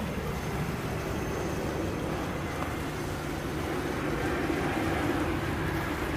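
Steady low rumble and hum of a large warship's engines and machinery as it passes close by.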